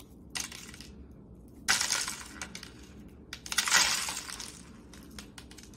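Candy sprinkles shaken from a shaker jar, rattling out and pattering onto a plastic plate in two strong shakes, about two seconds in and again near four seconds, with a few lighter rattles around them.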